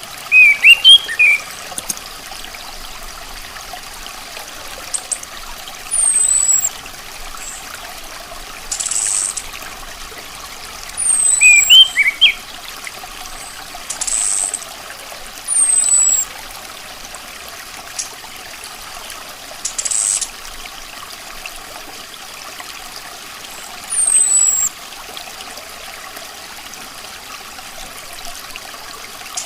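Chestnut-capped thrush (anis kembang) calls every few seconds: thin, high, falling whistles, quick up-and-down twittering phrases and short harsh hissy notes. These sound over a steady, water-like background hiss. The loudest twittering phrases come about a second in and again about halfway through.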